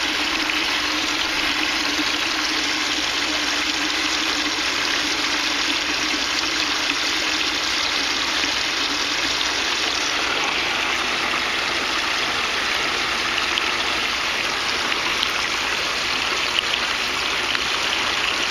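Water running and splashing steadily through an aquaponics system's grow bed and tank, with a faint low hum that fades out about six seconds in.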